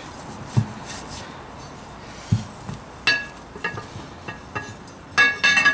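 A cloth rubbing over a metal beadlock ring, with a few soft thumps as the ring is handled. From about three seconds in the ring knocks against something and rings out in short metallic clinks, several in quick succession near the end.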